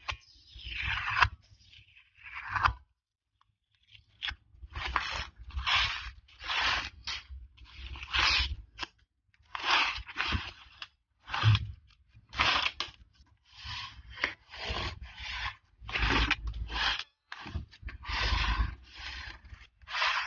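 Decorative washi-style sticker tape being peeled from its roll and rubbed down onto a notebook page with a plastic scraper. It is a series of short rubbing and scraping strokes, about one a second, with brief pauses between them.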